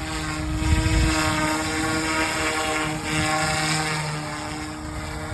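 Electric RC helicopter, a Yuxiang F280 on 6S batteries, with its motor and rotor running steadily at one pitch, giving a steady whine, and a brief low rumble about a second in.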